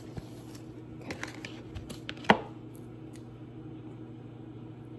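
Kitchen handling of a knife and onion on a plate: a few light taps and clicks, with one sharp knock a little over two seconds in. A microwave's steady low hum runs underneath.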